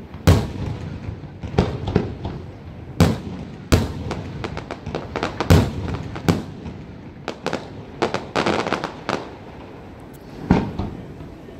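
Aerial firework shells bursting in a string of sharp bangs at uneven intervals, with a quick flurry of crackling reports a little past the middle and one more bang near the end.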